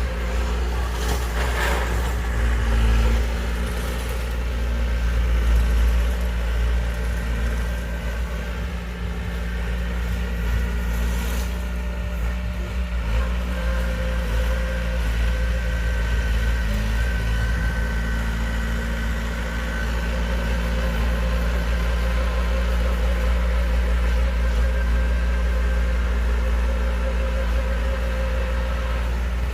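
Heavy diesel engine of construction machinery running steadily at a low, even speed, with two brief knocks, one near the start and one about eleven seconds in.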